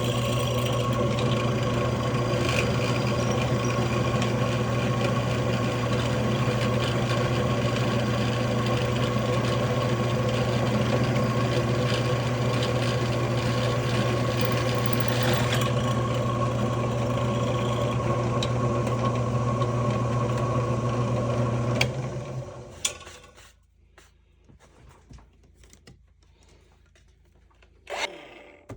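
Motor-driven drilling machine running steadily as it cuts a hole in a solid aluminum hand wheel, then switched off about 22 seconds in and winding down. A few light clicks and a short knock follow near the end.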